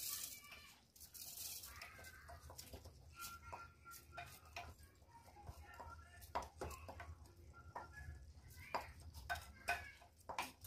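Rice being poured and scraped out of a bowl into a pot of sauce with a wooden spoon: faint scraping and pouring with a few sharp knocks of spoon against bowl, the loudest near the end.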